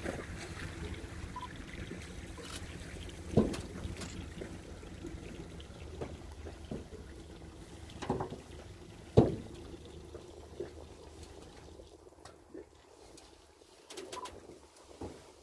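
Water lapping and splashing against a small boat's hull close to a reedy riverbank, with a few sharp knocks or slaps about three, eight and nine seconds in. Under it a low steady hum of the boat's idling motor, which fades out about twelve seconds in.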